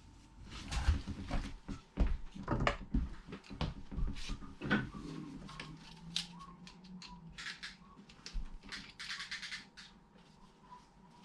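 Hands-on work noises: a run of irregular clicks, knocks and rustles as tools and parts are handled, with a couple of short hissing scrapes near the end.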